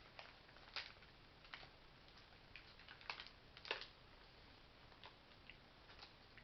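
Faint, scattered crinkles and clicks as MRE crackers are worked out of their packet.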